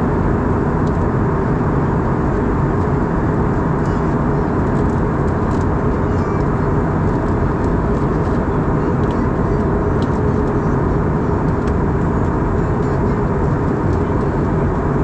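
Steady cabin noise inside an Airbus A320 in flight: an even rush of engine and airflow noise, heaviest in the low range, with a faint constant hum and no change throughout.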